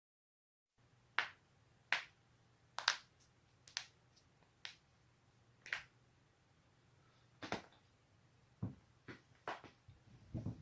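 Joints cracking: about a dozen sharp pops at uneven intervals, starting about a second in, with a couple of duller, deeper pops near the end.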